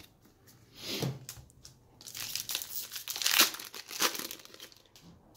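Foil wrapper of a Magic: The Gathering booster pack crinkling as it is pulled open, in a run of crackles from about two to four seconds in, with a shorter rustle about a second in.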